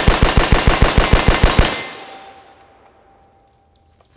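Rapid semi-automatic fire from a BCM AR-15 rifle with a hammer comp muzzle brake, evenly spaced shots about six a second. The string stops a little under two seconds in, and the reports echo away.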